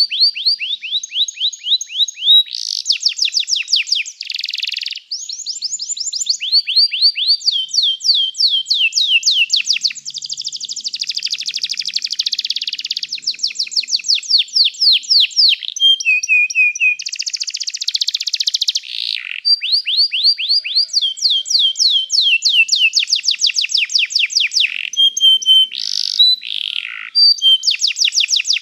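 Domestic canary singing a long unbroken song of fast, high trills, switching from one rolling phrase to the next every second or two.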